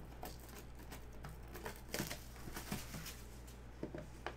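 Plastic shrink-wrap on a trading card box crinkling as the box is handled and picked at: scattered light rustles and clicks.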